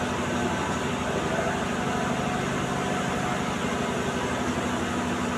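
A steady mechanical hum, like a running machine, with a low drone and a few faint steady tones; no sudden sounds.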